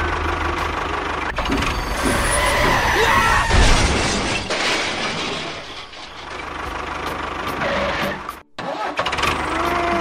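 Tractor engine running with a steady pulsing rumble, broken by a burst of clattering crash noise with a heavy thump about three and a half seconds in. The engine sound carries on afterwards and cuts out for a moment near the end.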